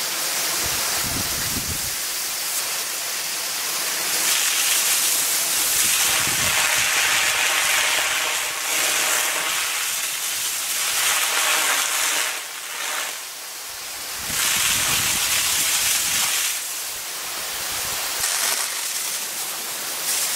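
Mariner rain gun sprinkler throwing its jet of water, with a steady rushing hiss of spray falling through the trees. The sound swells louder in stretches and dips briefly about two-thirds of the way through.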